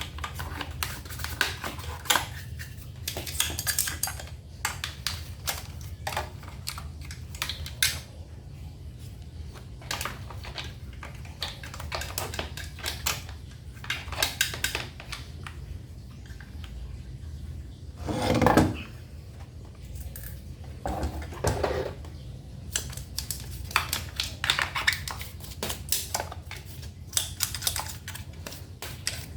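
Small metal parts and tools clinking and clattering while a gasoline inverter generator's carburetor is cleaned and handled, with one louder, longer sound about two-thirds of the way through, over a steady low hum.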